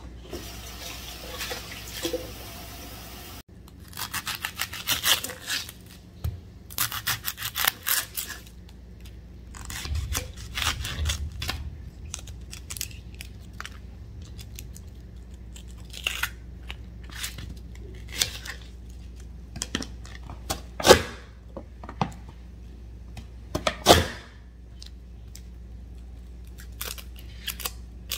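Dry, papery onion skin crackling and tearing as a large white onion is peeled by hand, in short clusters of rustling. Two sharp knocks about three seconds apart come late on and are the loudest sounds.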